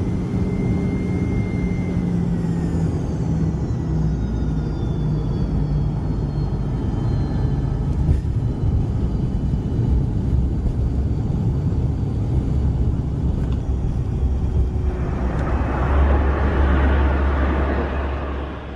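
Aircraft in flight: steady engine and airflow rumble with low engine tones, a faint high whine sliding down in pitch over the first few seconds, and a rushing noise that swells near the end before the sound fades out.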